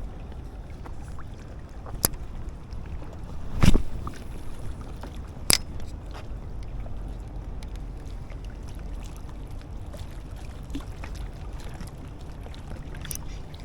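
Steady low rumble of riverside wind and water, broken by four short sharp knocks or clicks. The loudest knock comes about four seconds in.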